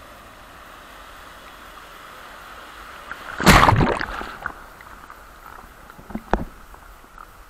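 Sea waves washing steadily, with one wave breaking and splashing loudly about three and a half seconds in and fading over about a second. A short sharp knock comes near the end.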